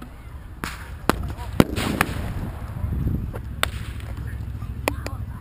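Consumer fireworks going off: a run of sharp bangs and pops at irregular intervals, about seven in all, several close together in the first two seconds.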